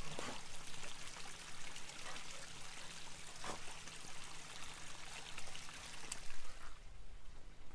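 Steady soft hiss of outdoor background noise with a few faint taps; the highest part of the hiss fades near the end.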